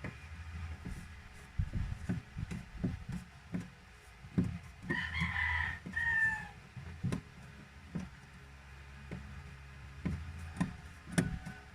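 A rooster crowing once, about five seconds in, the call dropping in pitch at its end, with scattered light knocks and taps around it.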